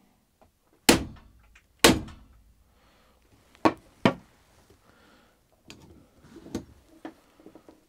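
A steel hammer strikes a hammer-operated cable-lug crimping tool twice, about a second apart, crimping a copper lug onto a thick electrical cable; each blow is sharp and rings briefly. Lighter clacks and knocks follow.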